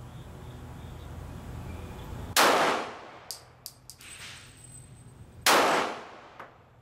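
Two pistol shots from a Glock 23 in .40 S&W, about three seconds apart, each trailing off in a long echo, with a few light metallic clinks in between.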